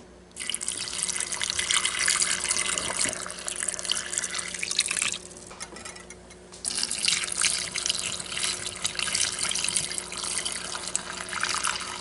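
Pickle brine poured in a stream from a glass measuring jug through a plastic canning funnel into a glass jar packed with cucumber slices, splashing as the jar fills. Two pours, with a pause of about a second and a half in the middle.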